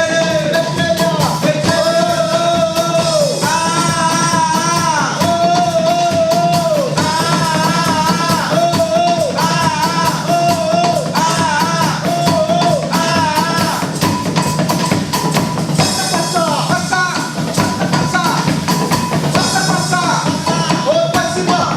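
Music: a song with a sung or lead melody line over a band with drums, playing steadily.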